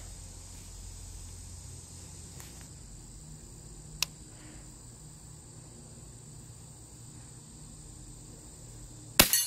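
Daisy Powerline 880 multi-pump pellet gun firing a single shot near the end, a short sharp report. A single sharp click comes about four seconds in. Insects drone steadily throughout with a thin high tone.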